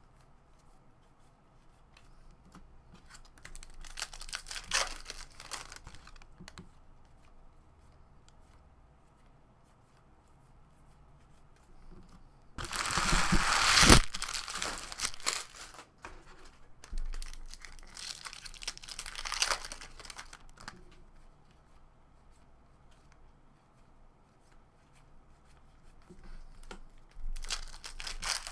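Foil trading card pack wrappers being torn open and crinkled, in several separate bursts, the loudest about halfway through.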